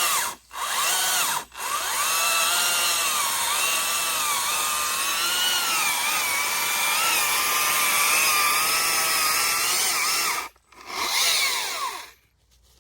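Stihl MSA 300 cordless battery chainsaw's electric motor whining as it cuts the felled tree into pieces, its pitch wavering under load. The trigger is let go briefly twice near the start, then the saw runs steadily for about nine seconds, stops, gives one short burst and falls quiet near the end.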